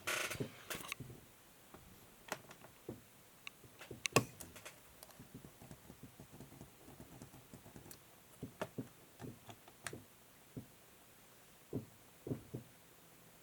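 Irregular clicks and taps of a laptop's keys and plastic case being pressed and handled, with a short cluster at the start and a louder knock about four seconds in.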